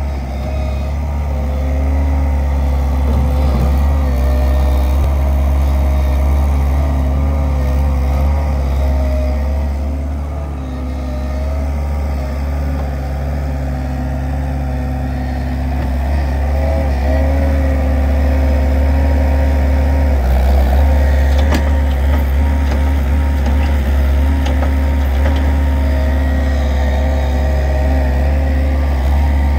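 Diesel engines running steadily: an Avant 640 compact loader working its bucket through a manure heap, with a Lindner Lintrac tractor standing by with its engine running.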